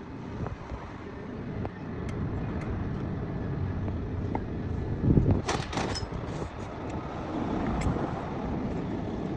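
A motor vehicle's engine running steadily, with a few sharp knocks about five to six seconds in.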